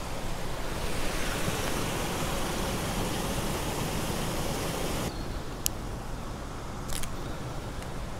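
Steady rushing noise on the microphone that cuts off suddenly about five seconds in, followed by two sharp clicks about a second and a half apart.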